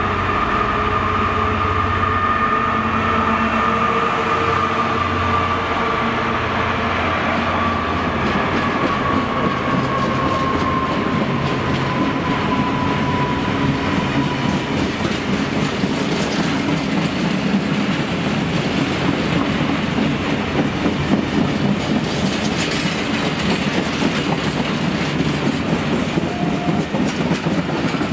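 Class 66 diesel locomotive's two-stroke V12 engine drones past with a high whine that slowly falls in pitch, followed by a long rake of empty freight wagons rolling by, their wheels clattering rhythmically over the rail joints.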